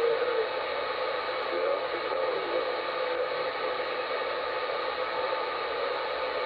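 CB radio receiving on channel 38 (27.385 MHz) in single sideband: a steady hiss of static, with faint warbling traces of a distant sideband signal underneath.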